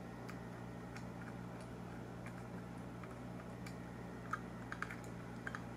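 Scattered small clicks and taps of a precision screwdriver working on the tiny screws and metal case of a portable headphone DAC/amp being taken apart, more of them in the last second and a half, over a steady low hum.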